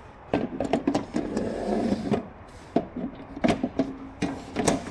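Sections of a boom gate's target board being handled and fitted together: a run of sharp clicks and light knocks with a scraping rub about a second in, and a few more separate knocks later.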